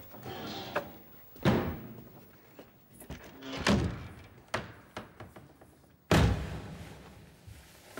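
Three heavy door thuds, about two seconds apart.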